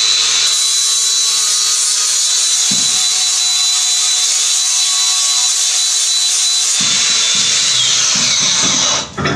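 Electric angle grinder running steadily, its disc grinding rust off steel flat bar to prepare it for welding; it stops near the end.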